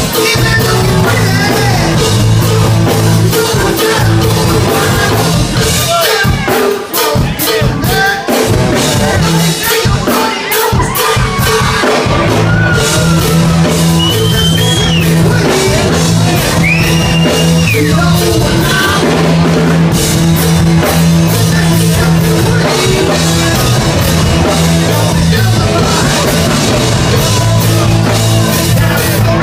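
Live rock band playing a loud song with drum kit, bass and singing, with a cowbell struck along. The low bass notes drop out for a few seconds about six seconds in while the drums keep going.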